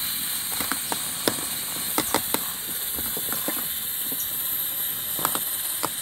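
A metal angu cutter knocks and scrapes irregularly against a metal pot as cornmeal is worked into boiling water for angu, over a steady hiss.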